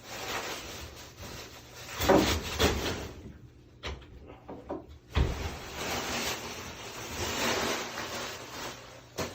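Rubbing and scraping with a few sharp knocks as newly installed sliding closet doors and their plastic shrink-wrap are handled, with a longer stretch of steady rubbing in the second half.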